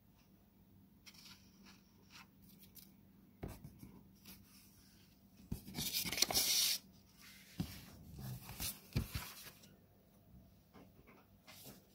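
Paper rustling and soft knocks from an old paper-wrappered book being handled, its pages turned and the book closed and picked up. The loudest part is a dense rustle of about a second just past the middle.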